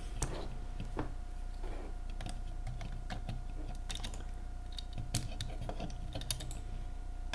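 Light, irregular clicks and taps of a hard plastic transforming-robot toy being handled as its missile launcher is pushed and set to fire, over a faint steady hum.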